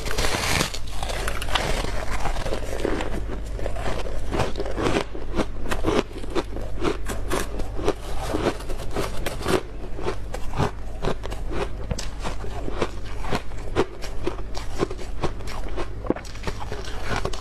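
Freezer frost being bitten and chewed: a dense, irregular run of sharp crunching and crackling, over a steady low hum.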